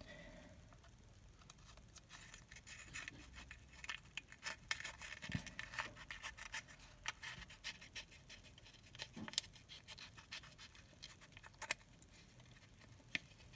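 Small scissors snipping open a leathery ball python egg, with scratching and rustling of fingers on the shell: faint, irregular clicks and snips.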